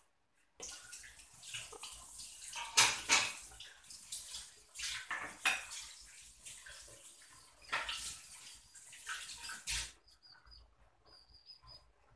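Irregular clattering and rustling noise with sharp knocks, loudest about three seconds in, stopping at about ten seconds. After that, a bird gives short high chirps several times.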